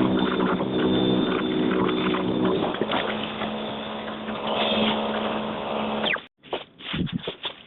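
EGO 21-inch battery-powered snowblower running steadily, its electric motor humming as the auger throws snow; the tone shifts about three seconds in. The sound cuts off abruptly near the end, leaving a few short scrapes and clicks.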